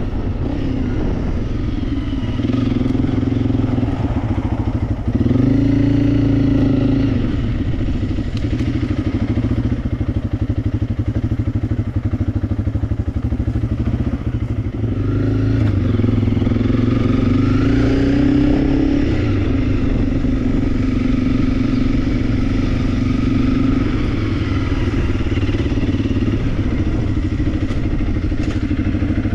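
Honda CRF300 Rally's single-cylinder engine running while riding. The engine note rises and eases off about five seconds in, and again around sixteen to nineteen seconds in, as the throttle changes.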